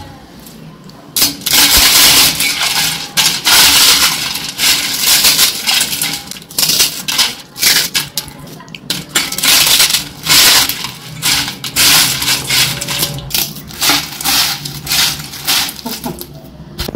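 Crisp fried kurdai (wheat fritters) being crushed by hand in a stainless steel bowl: repeated bursts of crackling crunches, starting about a second in, with the broken pieces clinking against the steel.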